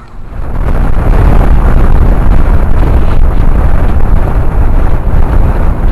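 Wind rushing past a moving car and buffeting the microphone held out of the car window, a loud, rough rush that heavily overloads the low end. It builds up within the first second.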